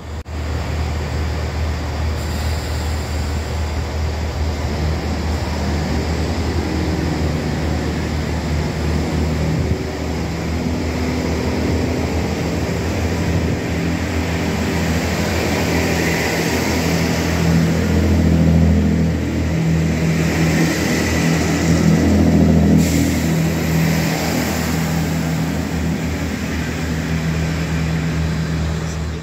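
Diesel multiple-unit trains running past and into a station platform: the steady low note of their underfloor diesel engines, growing louder for a while in the middle as a train passes close by.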